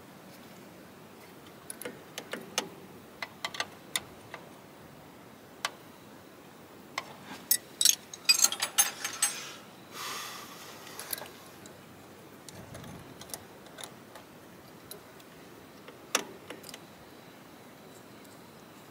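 Hand work on metal fuel fittings: scattered metallic clicks and clinks of a spanner against fittings, with a quick rattling run of clicks about eight seconds in and a short scrape just after.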